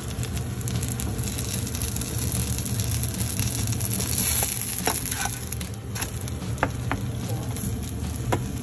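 Kimchi mung bean pancake sizzling steadily in oil in a nonstick frying pan, with a few sharp clicks in the second half as a knife cuts it in the pan.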